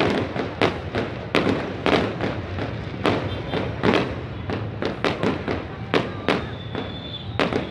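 Fireworks going off overhead: a rapid, irregular string of bangs and pops, several a second. A faint thin whistle comes in near the end.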